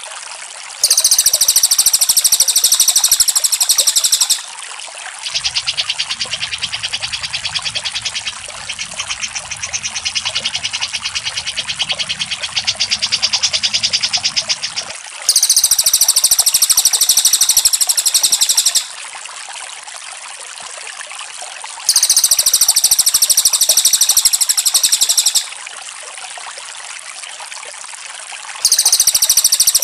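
Recorded cucak jenggot and cililin calls played for bird training: loud, very high, rapid chattering bursts of about three seconds, repeated four times, with a lower rapid trill between the first two, over a steady background hiss.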